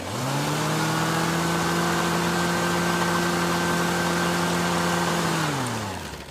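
Lawn mower engine spinning up quickly to a steady, even hum, then winding down in pitch and dying out near the end.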